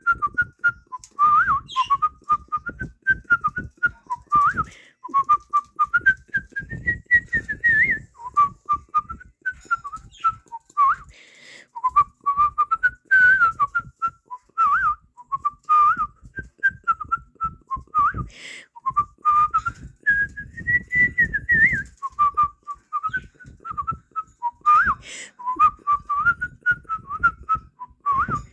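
A person whistling a lively tune by mouth: a single clear melody that rises and falls without a break, with quick upward flicks between notes.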